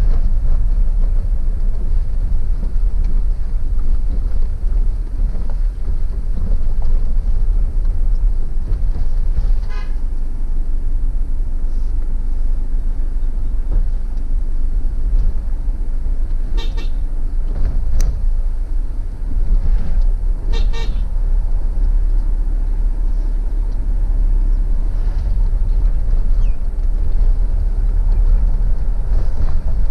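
Steady low road and engine rumble from inside a moving car's cabin, with short car-horn toots: one about a third of the way in and two more bursts past the halfway point.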